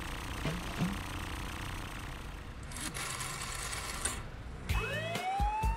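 Cartoon vehicle engine humming steadily, then a rotary telephone dial whirring for about a second and a half around the middle. Near the end come low pulses and rising electronic tones as the call goes through.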